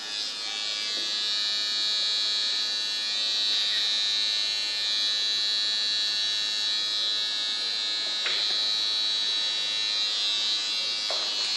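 Electric hair clippers running, a steady high-pitched buzz as they are worked over the hair of a mannequin head. Two faint ticks come about eight and eleven seconds in.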